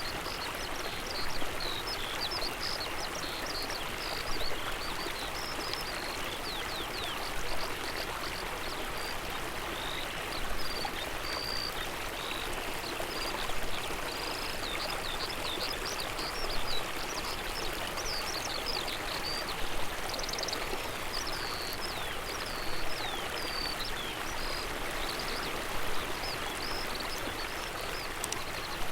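A river or stream flowing steadily, with small birds chirping and trilling over it. A brief louder note comes about every three seconds.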